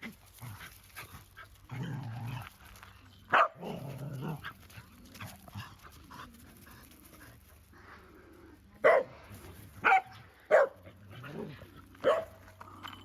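A dog barking in short, sharp single barks, about five in all, four of them coming close together in the second half, with lower grumbling sounds between.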